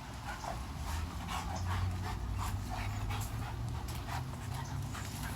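A dog panting, quick breathy strokes at about three a second.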